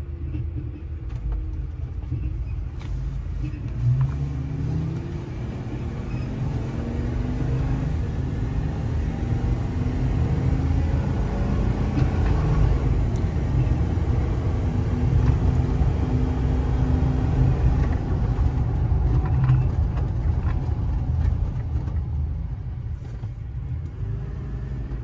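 Cab interior of a 2016 Ford F-550 with its 6.8-litre V10 gas engine under way, engine drone and low road rumble together. The engine note climbs for the first several seconds as the truck accelerates, holds at cruise, then eases off near the end as the truck slows.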